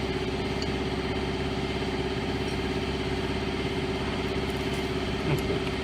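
A steady mechanical running hum, like an engine or motor idling, holding one even pitch throughout. A couple of light clicks come near the end.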